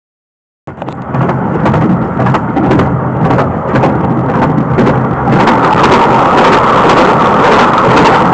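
Rumble and clatter of a train carriage running along the track, heard from inside, with irregular clicks of the wheels on the rails. The noise grows louder and brighter about five seconds in.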